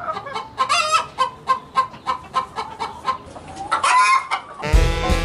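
Domestic chickens clucking in a quick run of short calls, about four a second, with a longer rising squawk about four seconds in. A swing band led by saxophone comes in loudly near the end.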